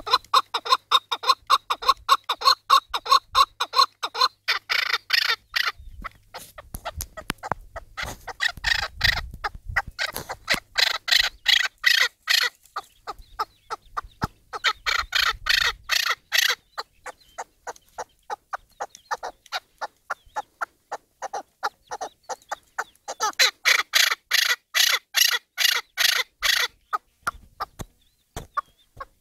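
Chukar partridge calling from a cage: long runs of rapid repeated clucking notes, about five a second, swelling into several louder bouts and tailing off near the end.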